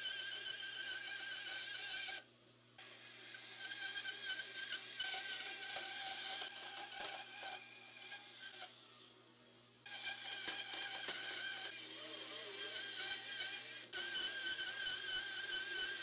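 Band saw running and cutting through a thick wooden block, a steady wavering high whine over cutting hiss. The sound drops out abruptly twice, briefly about two seconds in and for about a second near nine seconds in.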